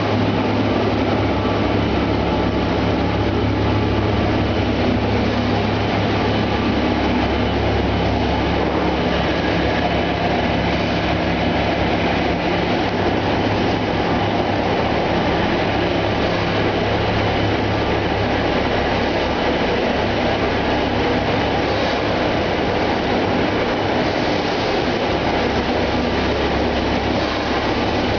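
Egg tray production line machinery running: a steady mechanical din with a constant low hum.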